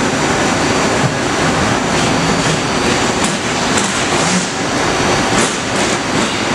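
Haas VF-3 CNC vertical mill running under power: a steady mechanical whirring and rumbling with no pauses.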